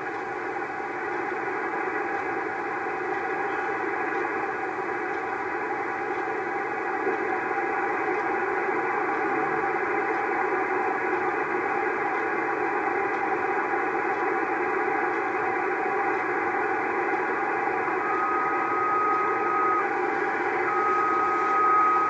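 Static and hiss from the speaker of a homebuilt vacuum-tube 40-metre shortwave receiver, tuned between stations. Near the end, a steady whistle comes in twice: a station tuning up on the band, its carrier beating against the receiver's BFO.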